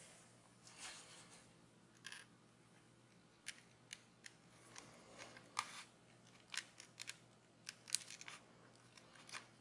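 Faint, scattered small clicks and light taps of hands handling the screen protector kit's plastic installation jig and adhesive dispenser, about a dozen spread over the second half, after a soft rustle at the start.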